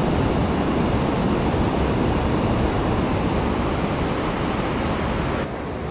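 Ocean surf breaking on a sandy beach: a steady rushing noise. Near the end it drops suddenly to a quieter, duller rush.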